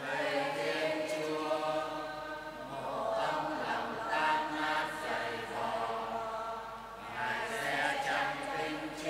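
Church choir and congregation singing the psalm response together, several voices in unison in slow phrases.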